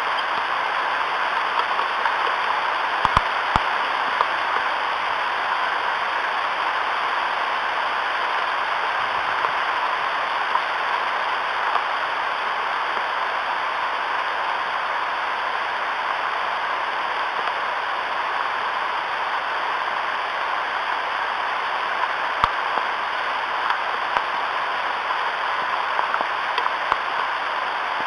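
Steady rain falling on the nest and surrounding leaves, an even hiss with a few louder drops ticking close by.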